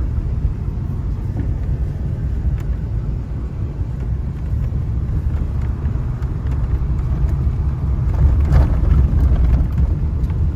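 1929 Ford Model A's four-cylinder engine running under load as the car drives over a rough dirt trail, a steady low rumble that grows louder about eight seconds in.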